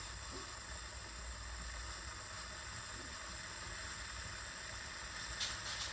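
Steam hissing steadily from a Pressure King Pro electric pressure cooker's lid while pressure builds, before the float valve seals. A few faint ticks come near the end.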